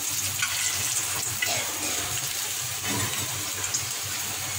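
Hilsa fish frying in hot oil in a frying pan, a steady sizzle with a few light clicks.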